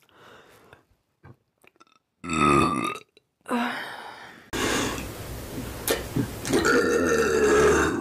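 Women belching: a loud burp about two seconds in and a shorter one right after it, then a longer, drawn-out burp near the end over a background hiss.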